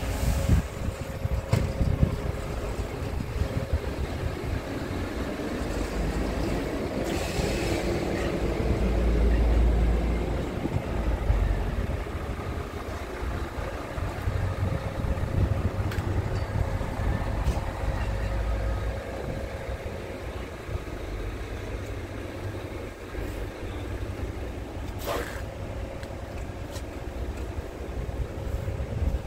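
Low, steady vehicle rumble with a faint steady hum, overlaid by gusts of wind buffeting the microphone, the strongest about a third of the way in. A few brief clicks and knocks.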